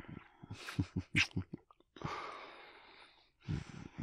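A man's voice without words: a run of quick breathy chuckles, then a long exhaled sigh that fades away.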